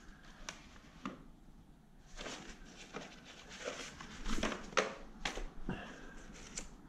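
Sheets of paper rustling and sliding as a bundle of documents is pulled out by gloved hands, with scattered light clicks and knocks.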